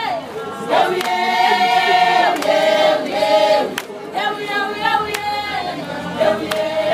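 A crowd of women singing a protest song together, holding long notes, with a sharp strike about every second and a half.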